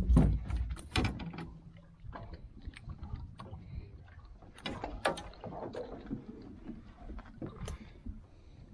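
Knocks and thumps on an aluminum boat's deck and gunwale as a landed catfish is handled. The loudest knocks come right at the start and again about a second in, followed by scattered light clicks.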